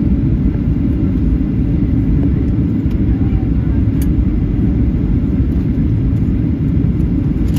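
Steady, loud cabin rumble of a Boeing 737-800 on approach with its flaps extended: airflow over the fuselage and wing mixed with its CFM56-7B turbofans, heard from a window seat. A faint tick sounds about four seconds in.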